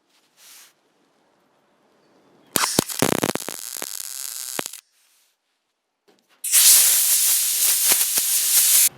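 MIG welder crackling in two bursts, about two seconds each, the second louder: wire-feed welding filling pinholes in the steel hood sheet metal over ceramic backing squares.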